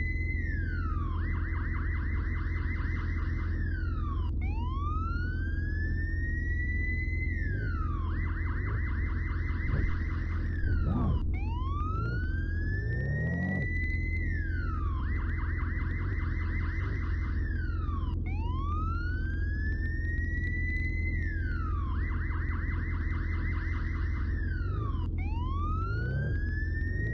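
Electronic siren cycling over and over: a rising wail, then a fast warble, each cycle about four and a half seconds long, over a steady low hum.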